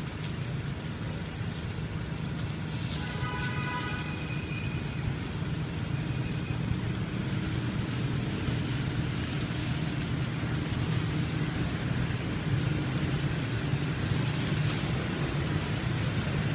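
Steady road traffic of cars and motorbikes with a low rumble, growing a little louder toward the end, with a brief pitched sound about three seconds in.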